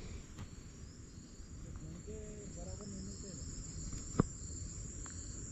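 Steady high-pitched chorus of insects such as crickets, with one sharp click a little after four seconds in.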